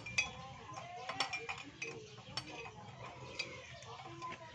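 Metal hand tools clinking against a small engine: a socket on an extension knocking and clicking on the cylinder head as bolts are fitted, in irregular sharp clinks a second or so apart.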